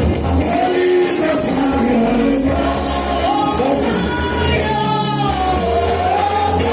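Gospel worship music with singing voices over a steady bass accompaniment.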